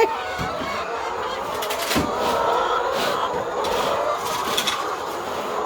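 A flock of laying hens clucking together in a steady, dense chorus, with a few short knocks.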